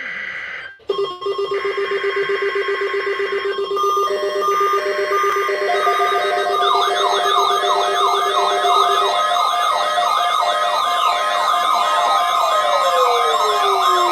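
Several electronic alert tones and siren sounds layered over one another and building up. A low pulsing buzz and steady tones come first, then a fast warbling tone and quickly repeated falling sweeps, about two or three a second, join in. Near the end one siren tone winds down in pitch.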